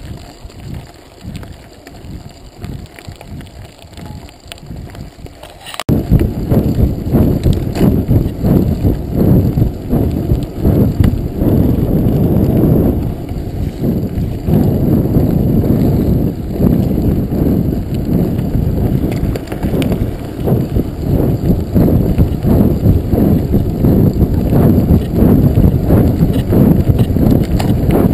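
Mountain bike tyres rolling fast over a gravel and dirt road, with the bike rattling over the rough surface and wind on the microphone. It is quieter at first, then jumps abruptly to a much louder, dense rattle about six seconds in.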